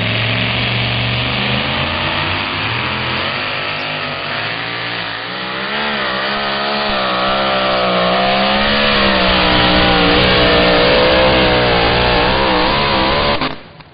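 Two-wheel-drive pulling truck's engine running at high revs under full load as it drags a weight-transfer sled, the pitch wavering up and down and the sound growing louder partway through. It cuts off suddenly near the end.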